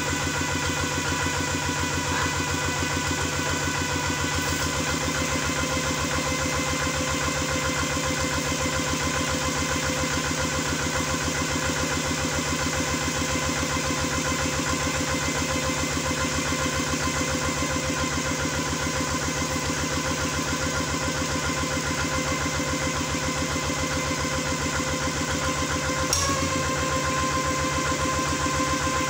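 Kubota RD 85 DI 2S single-cylinder diesel engine running steadily through a tall upright exhaust stack, with an even firing beat. Near the end there is a brief click and its note shifts slightly and gets a little louder.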